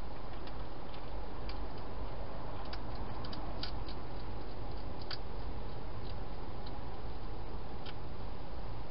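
A hedgehog eating at a bowl: irregular, sharp crunching clicks as it chews its food, about a dozen over several seconds, over a steady low hiss.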